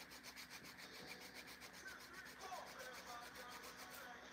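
Acrylic nails being filed with quick, even scraping strokes, about seven a second, that stop abruptly near the end.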